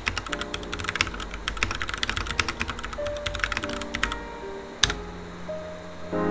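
Fast typing on a Ducky One 2 SF 65% mechanical keyboard with Cherry MX Brown switches and all-white keycaps: a dense run of keystroke clacks that stops about four seconds in, with one last keystroke shortly after. Soft background music plays underneath.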